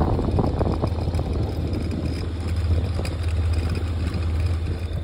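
Motorcycle engine running steadily on the road, a low even drone under a rush of wind noise.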